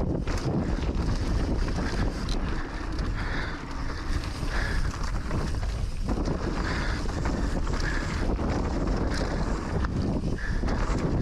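Wind rushing over an action camera's microphone while riding an e-mountain bike fast down a dirt trail, with a steady low rumble of tyres rolling on dirt and a few sharp knocks from the bike.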